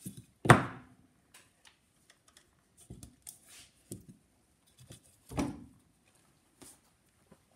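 Wooden blocks and a Victor phonograph spring motor being set down on a workbench: a loud wooden knock about half a second in and another about five and a half seconds in, with light clicks and handling between.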